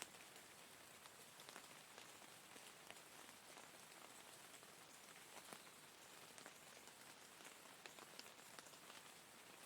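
Faint, steady rain falling, with many separate drops ticking sharply on a surface at irregular moments.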